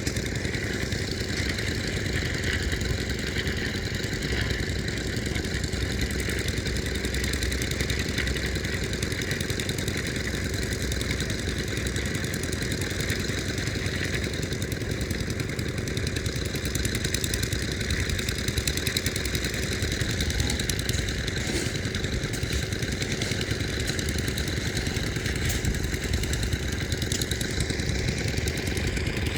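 An engine running steadily and evenly, with no changes in speed.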